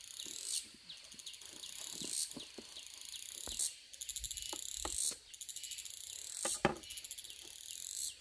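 Crickets or other insects chirping in repeated high-pitched pulsed trills, each lasting about a second. A few sharp knocks fall in the middle and near the end.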